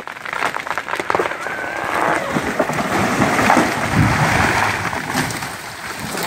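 Big poplar tree falling: a quick run of sharp cracks from the cut trunk, then a rushing crash of branches through the surrounding trees that builds to its heaviest point about four seconds in as the trunk hits the ground, and dies away.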